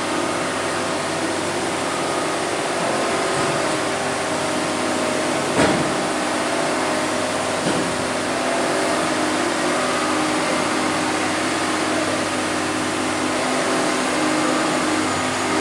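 Large crawler excavator's diesel engine running steadily under load, with a sharp knock about five and a half seconds in and a lighter one about two seconds later.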